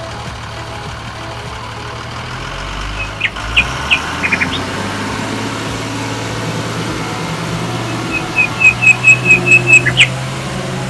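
Bird chirps, a few short ones about a third of the way in and then a quick run of about eight near the end, over a steady low hum.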